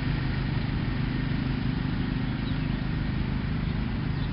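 A steady, low engine-like hum with no clear change.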